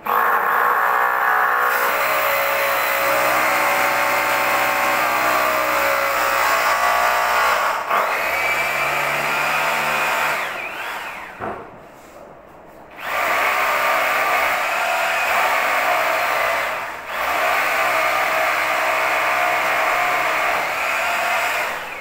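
Electric power tool motor whining at high speed in two long runs. The first winds down with a falling pitch a little after ten seconds; after a short pause it starts again, dips briefly, and stops near the end.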